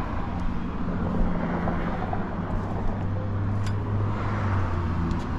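A car engine idling steadily with a low hum over a rushing background noise; the hum fades out a little before the end.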